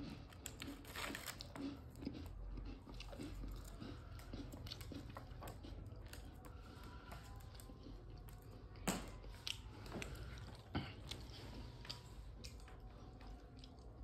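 Rose-ringed parakeet biting and crunching a cookie with its beak: faint, irregular crisp cracks, with two louder snaps in the second half.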